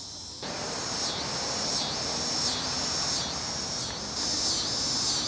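A chorus of insects calling high and steady, swelling and fading about every three-quarters of a second. A steady rushing noise comes in about half a second in.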